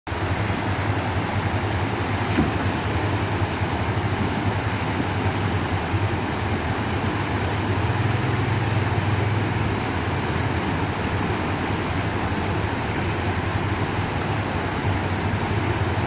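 Creek water rushing over rocks, with the low rumble of a Jeep Wrangler's engine running at low speed as it crawls through the stream; the engine rumble rises a little about halfway through.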